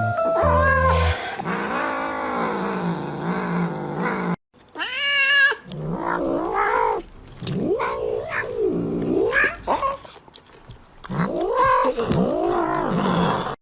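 A cat yowling: a long, wavering wail, then a run of shorter drawn-out calls that rise and fall in pitch, with a brief break about four seconds in. A few bright mallet-like musical notes sound in the first second.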